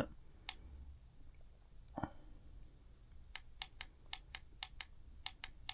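Power button on an RGB gaming headset stand clicking: one click, a soft knock about two seconds in, then a quick run of about ten clicks near the end as the light modes are stepped through.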